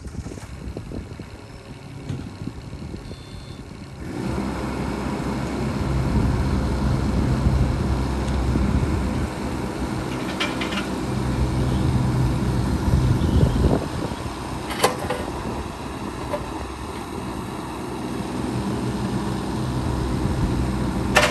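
A 2018 JCB 15C-1 mini excavator's diesel engine running steadily, getting louder about four seconds in as it takes on load. The machine tracks and works its boom and bucket, with a short rising whine and a couple of sharp metal clanks partway through.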